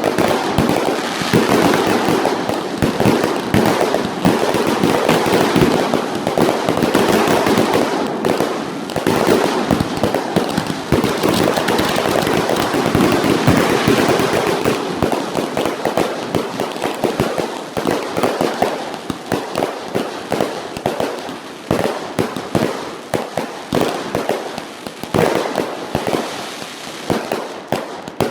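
Fireworks finale: a dense, rapid barrage of bangs and crackling that runs almost without a break, then thins toward the end into more widely spaced bangs.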